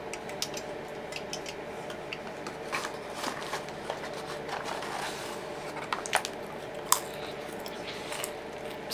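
Scattered clicks, taps and rustles of hands handling a fast-food box meal and its packaging, with two sharper clicks near six and seven seconds in.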